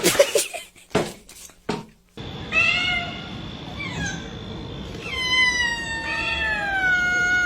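A few short sharp sounds, then a cat meowing: a short meow, and a long drawn-out meow whose pitch slowly falls.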